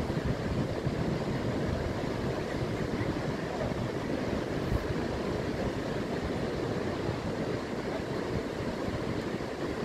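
Steady seashore ambience: surf washing over the tidal flat mixed with wind buffeting the microphone, an even rushing noise with no distinct events.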